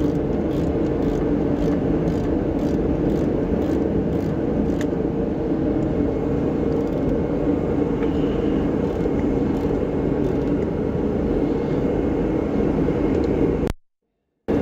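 A steady low mechanical drone with faint light clicks in the first few seconds. It cuts out completely for under a second near the end.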